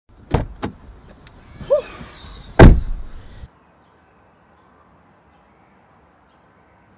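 Jeep Wrangler cabin: a couple of sharp knocks, then a car door slammed shut about two and a half seconds in, the loudest sound. The sound cuts off abruptly about a second later.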